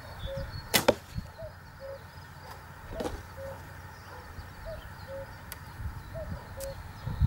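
An arrow shot from a traditional Turkish-style bow drawn with a thumb-ring release: the string snaps forward with one sharp crack a little under a second in.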